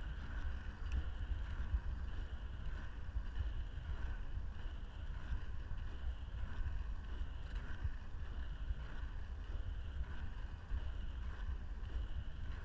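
Inline skate wheels rolling on asphalt with a steady whirr, under a low rumble of wind buffeting the microphone.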